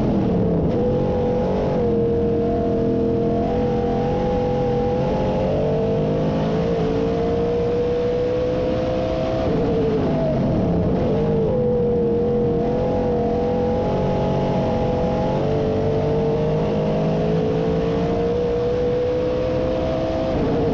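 358 small-block V8 of a dirt Modified race car at racing speed, heard from inside the cockpit. The engine runs at high revs with a steady note that dips in pitch briefly three times, at the start, about ten seconds in, and at the end, as the car checks up for the turns.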